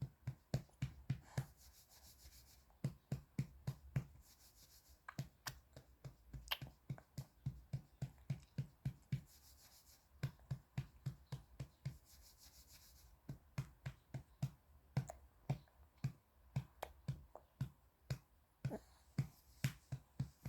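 A hand patting a baby's back to bring up a burp: quick, even pats about three a second, in runs of a few seconds with short pauses between.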